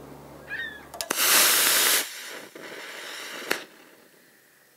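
B-size model rocket engine firing on a static test stand: a click at ignition, then about a second of loud rushing hiss as it burns. A fainter hiss follows, ending in a sharp pop about two and a half seconds later, the engine's delay burning through to its ejection charge.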